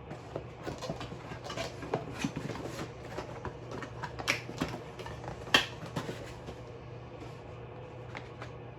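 Small clicks, taps and rattles of table-lamp parts being handled and fitted together, with the sharpest click about five and a half seconds in, easing off near the end. A steady low hum runs underneath.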